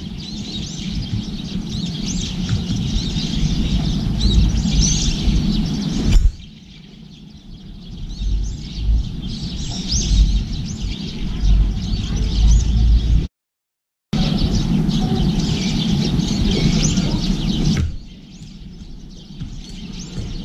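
Small birds chirping again and again over a low rumble; the rumble drops away abruptly about six seconds in and again near the end, and all sound cuts out for under a second about thirteen seconds in.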